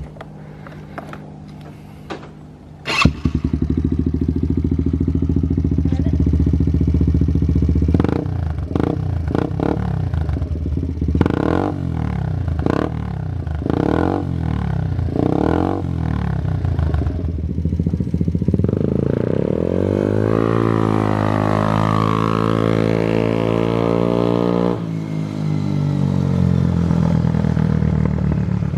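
Yamaha Raptor 90 quad's four-stroke single-cylinder engine, fitted with a Big Gun Evo full exhaust system, starting up about three seconds in and idling. It then takes a run of quick throttle blips and, about two-thirds of the way through, one longer rev that rises and falls before it settles back to idle.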